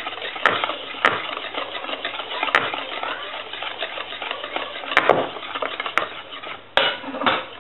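Wire whisk beating pancake batter in a mixing bowl: a continuous rapid swishing and scraping, with a few sharp clicks as the whisk strikes the side of the bowl.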